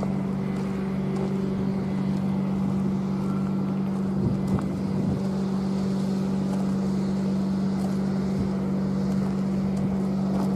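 A motor engine running steadily, a loud low drone that holds one pitch, with wind noise on the microphone and a couple of light knocks about halfway through.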